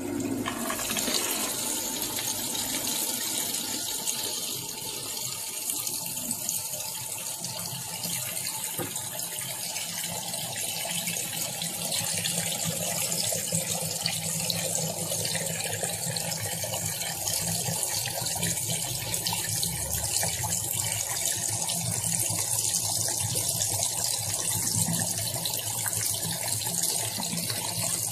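Portable washing machine running with a steady rush of water over a low, even motor hum.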